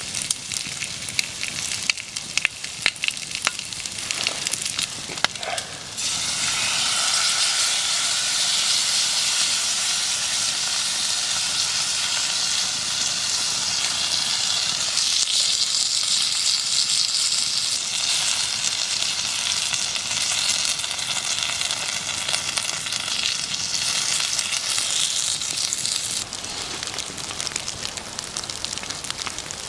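Campfire crackling for the first few seconds, then food sizzling loudly in a hot pan over the fire, starting suddenly about six seconds in and easing off near the end.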